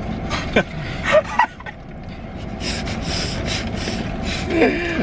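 A group laughing in short breathy bursts with a few voiced yelps, over a steady low background hum.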